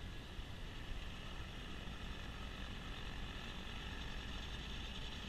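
Kubota B2650 diesel compact tractor running a front-mount snowblower at a distance: a steady low engine rumble under a continuous hiss, the hiss growing a little stronger in the second half.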